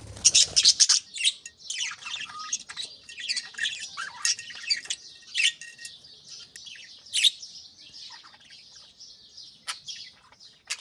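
A flock of budgerigars chirping and chattering: many overlapping short, high chirps and warbles, with a loud flurry of calls in the first second.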